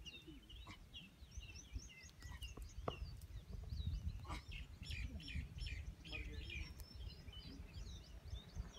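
Many small birds chirping in quick short calls, over a steady low rumble.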